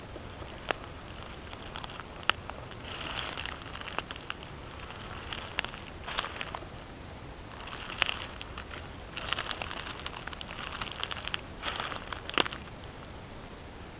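Dry leaf litter crunching and rustling in several irregular bursts, with a few sharp clicks in between.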